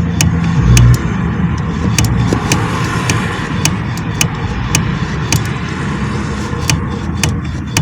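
Ford Fiesta steering shaft universal joint knocking: sharp ringing clicks, about two a second, as the steering wheel is turned quickly a little left and right in place, over a steady low vehicle hum. The knock comes from play in the joint's cross.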